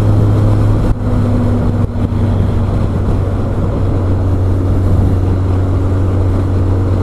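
Motorcycle running at a steady cruising speed, with a constant low engine drone under a heavy rush of wind noise, picked up by a microphone inside the rider's helmet.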